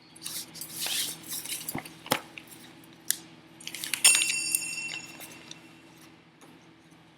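Metal objects being handled on a work surface: rustling and a couple of sharp clicks, then about four seconds in a loud metallic clink that rings on for about two seconds as it dies away.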